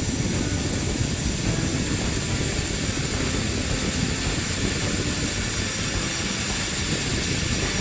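Cordless drill running steadily with an 11 mm bit, drilling the head off the axle rivet in a pram's front wheel hub.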